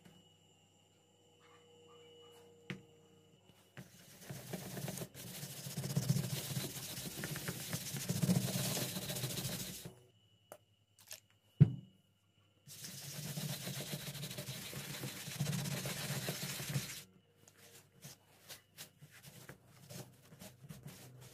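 Two long stretches of rough, hissing noise as a liquid finish is applied over the scuffed rubber footbed of an Adidas slide sandal, with a single sharp knock between them. Light clicks and taps follow near the end as the footbed is wiped with a cloth.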